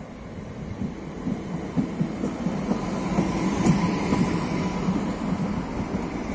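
Multiple-unit passenger train running past along the platform: a rumble with irregular wheel knocks over the rails, growing louder as the train draws alongside, at its loudest about halfway through.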